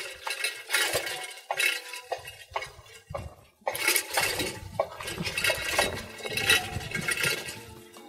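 Irregular sharp clinking and knocking, like glass and metal tapped together, about one to three strikes a second, with a short pause about three seconds in.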